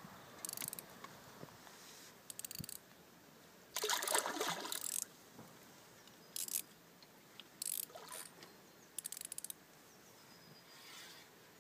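Fishing reel clicking in short ratcheting bursts while a hooked carp is played close in, about six bursts, the longest and loudest about four seconds in.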